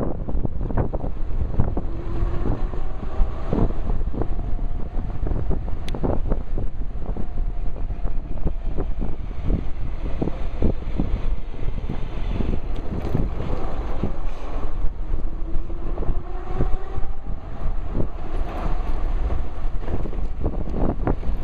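Wind buffeting the microphone during an electric bike ride, with the faint whine of a Crystalyte 5305 hub motor rising and falling in pitch. Frequent short knocks and rustles come from the camera riding in a shirt pocket.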